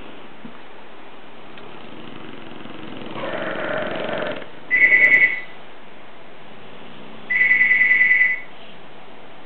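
A Dogue de Bordeaux snoring with one long, rough breath, then a telephone ringing in two short trilling bursts of one high tone. The ringing is the loudest sound.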